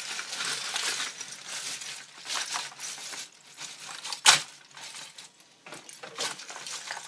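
Plastic Lego bricks clattering in several bursts as they are shaken out of a cotton pillowcase onto a towel. One sharp clack about four seconds in is the loudest.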